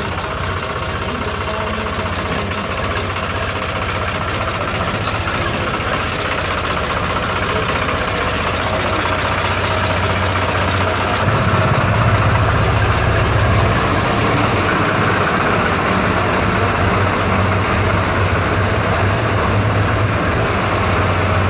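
Swaraj 735 XT tractor's diesel engine running steadily with a low hum, getting a little louder for a few seconds about eleven seconds in.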